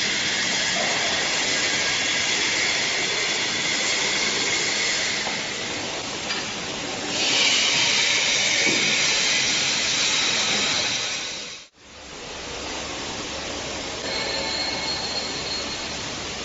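Multi rip saw machine running without cutting wood: a steady mechanical whirr with a rushing hiss. About twelve seconds in it cuts out abruptly, then comes back quieter over a low hum.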